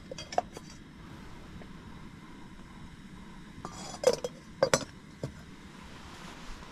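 Stainless steel pot lid clinking against the pot on a portable gas camping stove: a few light clinks at the start, then two louder metallic clanks with a short ring about four seconds in, over the steady faint hiss of the lit gas burner.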